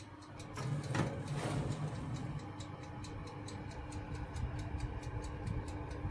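An open oven ticking rapidly and evenly, with a steady hum. About a second in comes a scraping clunk as the metal baking tray is slid out on its rack.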